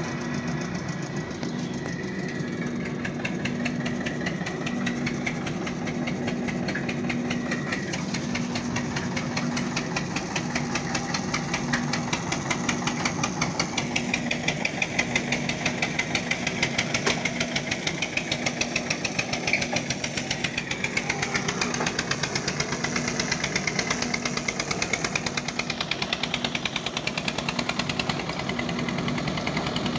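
An engine running steadily nearby with a fast, even knocking beat and a steady low hum.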